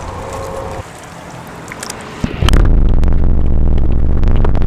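Light handling noise, then about two and a half seconds in a splash as the camera goes under the river water with the released carp, followed by a loud, steady, low underwater rush with scattered clicks.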